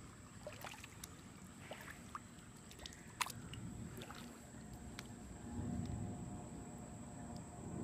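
Kayak paddling: faint water sloshing and drips from the paddle, with scattered light clicks and taps, the sharpest about three seconds in.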